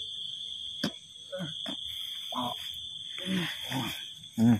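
People groaning and crying out in short, strained bursts, as if in pain, the loudest cry near the end, over a steady high-pitched whine.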